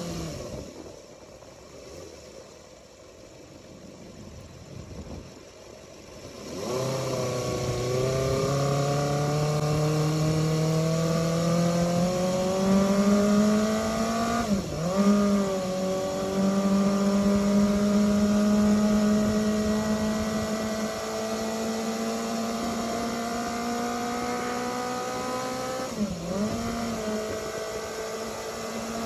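Engine of a Suzuki Choinori with a swapped-in Bandit 250 V inline-four, under way. It is quiet for the first six seconds or so, then pulls with its pitch climbing steadily through the gears, with a quick upshift about 15 seconds in and another near the end.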